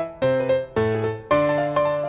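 Background piano music, a new note or chord struck about every half second.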